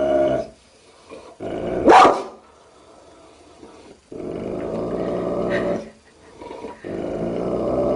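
A large mastiff-type dog growling at its own reflection in a mirror: a growl that breaks off about half a second in, a single loud bark about two seconds in, then two more long growls, the last starting about seven seconds in.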